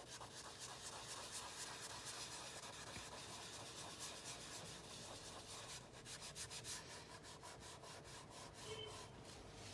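Chamois cloth rubbed in tiny circles over compressed charcoal on drawing paper: a faint, continuous scratchy rubbing made of rapid short strokes, working the charcoal into the paper to blend a dark background.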